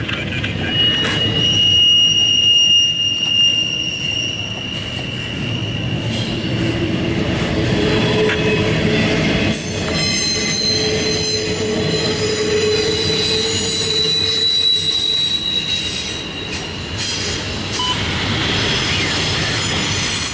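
CSX double-stack intermodal freight train rolling past, its container-laden well cars rumbling and clattering on the rails. Drawn-out high wheel squeals rise above the rumble, one in the first few seconds and a longer one from about eight to fifteen seconds in.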